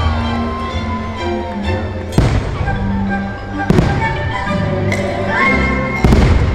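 Fireworks show music playing, with three sharp firework bangs going off through it.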